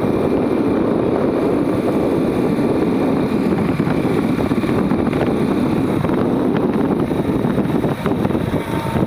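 Two-wheeler riding along a road: steady rush of wind over the microphone with the engine running underneath.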